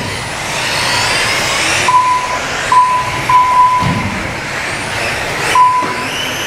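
Several electric RC off-road race cars running together, their motors whining and sliding up and down in pitch as they accelerate and brake. Four short, high beeps cut through, from the lap-timing system counting cars as they cross the line.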